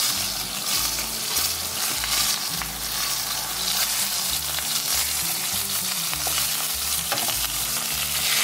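Rib eye steak sizzling as it pan-sears in hot oil and melted butter with garlic, turned and basted with metal tongs in a nonstick frying pan.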